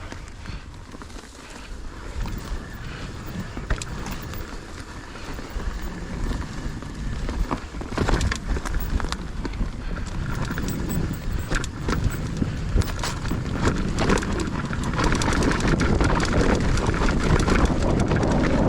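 Mountain bike rolling down a steep dirt trail: tyre rumble on dirt with many quick knocks and rattles from the bike, and wind on the microphone, getting steadily louder as speed builds.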